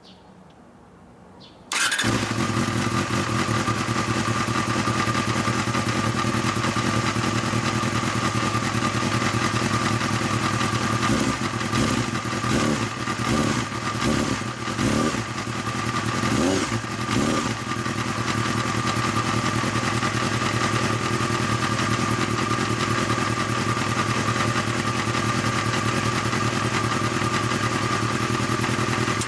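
Honda Hornet 250's inline-four engine starting about two seconds in and running steadily, its note wavering for several seconds midway, then cutting off at the end. It is a test run on newly fitted NGK CR9EH-9 spark plugs.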